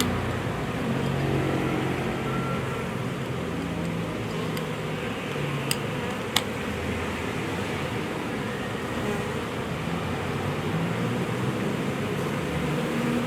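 Large honeybee swarm buzzing steadily, a dense wavering hum. Two sharp snips come a little past halfway as branches are trimmed.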